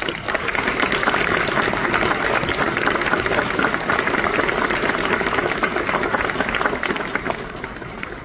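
Audience applause: dense clapping that starts suddenly as the music stops and dies away near the end.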